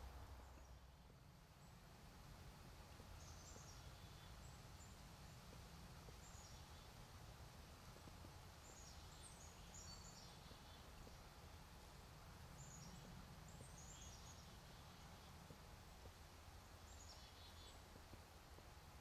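Faint, high-pitched chirping from small birds in short clusters every few seconds, over a low, steady background rumble.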